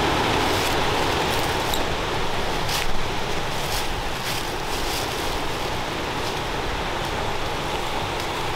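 Steady rush of a nearby mountain stream and waterfall. Over it come irregular sharp, light crunches of hiking boots stepping through dry fallen leaves, the loudest about three seconds in.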